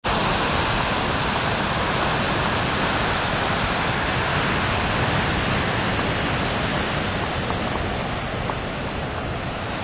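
Ocean waves breaking, a steady wash of white water that gets a little softer in the last few seconds.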